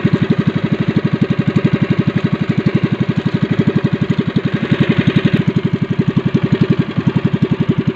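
Motor of an outrigger fishing boat running steadily, loud and close, with a fast even pulse of about a dozen beats a second.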